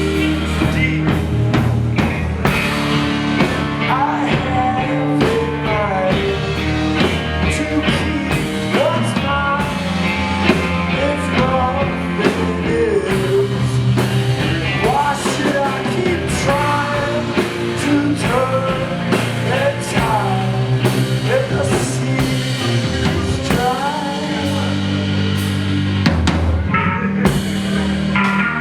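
Rock band playing an instrumental break: drum kit keeping a steady beat under guitars, with a melody line that bends up and down in pitch.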